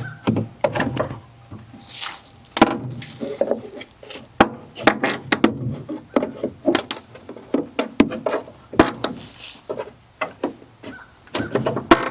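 Hammer and pry bar working apart a stapled wooden shipping crate: sharp knocks at irregular intervals, with a couple of longer scraping sounds as boards pull free.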